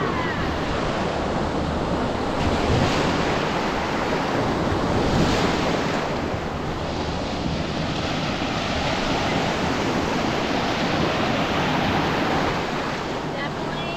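Ocean surf breaking and washing in steadily, with wind buffeting the microphone.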